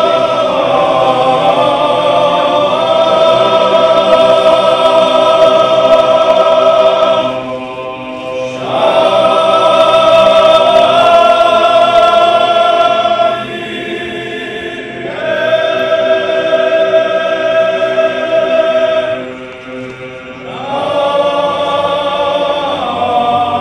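Choir singing a slow chant in long held notes, in four phrases with short pauses between them.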